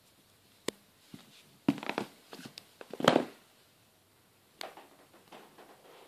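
Scattered clicks, knocks and rustles of handling noise in a small tiled room, the loudest knock about three seconds in.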